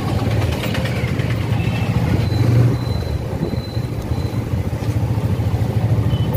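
TVS Apache RTR motorcycle engine running at low speed with a steady low note, heard from the rider's position while riding slowly in traffic.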